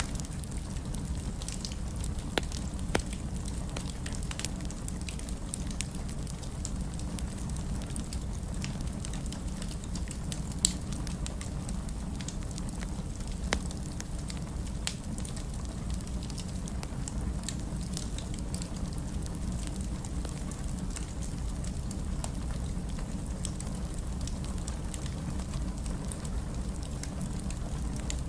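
Wood fire burning in a fireplace: a steady low rumble of flames with scattered crackles and a few sharper pops.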